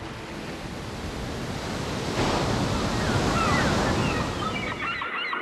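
Sea waves washing and wind blowing, swelling about two seconds in. Birds call briefly near the end.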